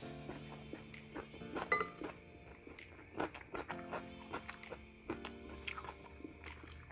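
A person chewing and crunching a mouthful of fried rice topped with crispy krupuk crackers, with short crisp crunches throughout, over steady background music.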